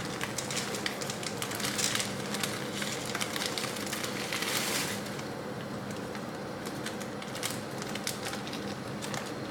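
Dry spaghetti being put into a pot of boiling water: quick clicking and crackling throughout, with two louder hissing rushes about two seconds and four and a half seconds in, over a steady low hum.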